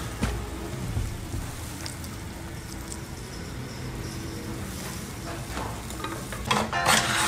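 Beef and okra sizzling as they fry in a nonstick pan, a steady crackling hiss that grows louder near the end.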